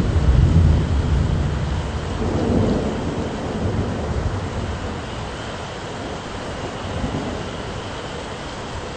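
Thunder rumbling, loudest right at the start with a second swell about two and a half seconds in, then rolling away and fading. Steady rain hisses underneath.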